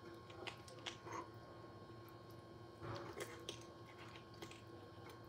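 Faint wet sounds of a knife working through raw chicken on a wooden cutting board: a few soft clicks and squelches, the clearest about a second in and again about three seconds in, over a steady faint hum.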